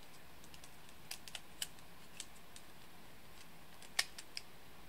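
Light clicks and taps of laser-cut wooden parts of a Nybble robot frame knocking together as they are handled and slid into place, a handful of scattered clicks with the sharpest about four seconds in.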